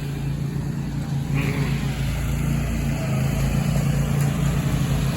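Riding lawn mower engine running steadily under throttle, getting a little louder about a second in.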